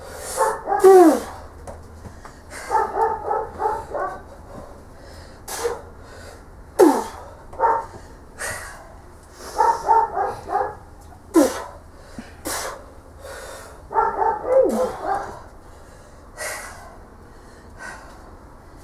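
A dog barking in short clusters, mixed with several long falling yelps or whines, about half a dozen times.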